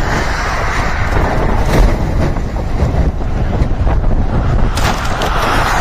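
Loud, steady rumble and rush of a road vehicle in motion, with a couple of brief knocks.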